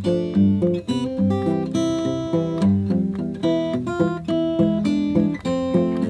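Journey OF660 carbon-fibre acoustic guitar played fingerstyle: a blues melody picked on the treble strings over an alternating thumb bass that steps between low notes.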